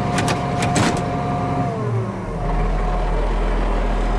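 Case IH 7120 Magnum tractor's six-cylinder diesel engine throttling down with the baler drive shut off: a few sharp clicks near the start, then the running pitch drops about two seconds in and settles into a low steady drone.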